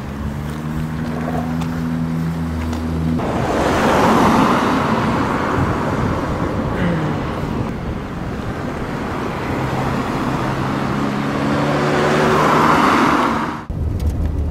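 Road traffic: car engine and tyre noise, swelling loudest about four seconds in and again near the end, then cutting off suddenly.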